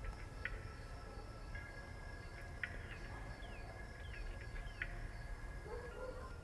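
Outdoor nature ambience: scattered short bird chirps, a few sliding downward, over a steady insect buzz and a low background rumble.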